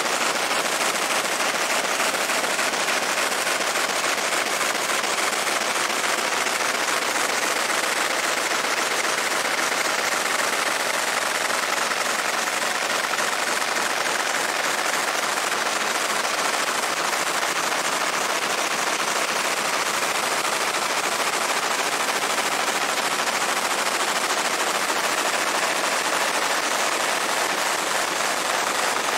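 Fiber laser engraver marking a steel Glock 19 slide: a steady, rapid crackling hiss as the beam ablates the metal, unbroken throughout.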